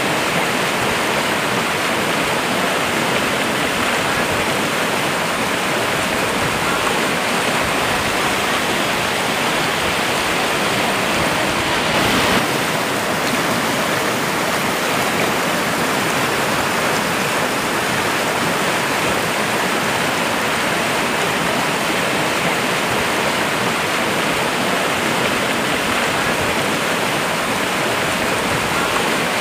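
Muddy floodwater rushing in a swollen channel: a steady, loud rush of turbulent water, briefly louder about twelve seconds in.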